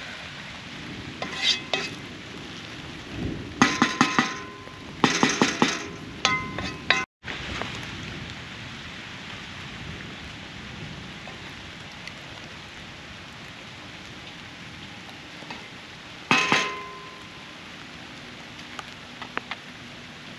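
Metal utensil clinking and scraping against a metal cooking pot in several short bursts, the pot ringing briefly, over a steady hiss.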